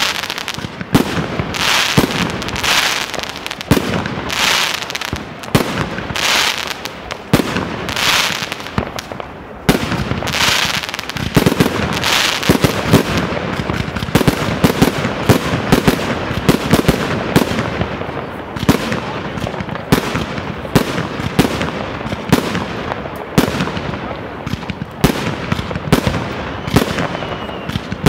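Aerial fireworks going off in quick succession: a hissing rush with sharp bangs about once a second for the first twelve seconds, then a denser stream of bangs and crackling bursts.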